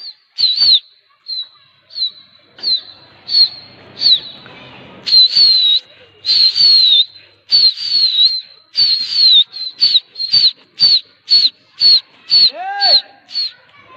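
Pigeon flyer's sharp, high whistles to a flock in flight, repeated about twenty times in quick succession, several sliding downward in pitch. A short rising-and-falling call comes near the end.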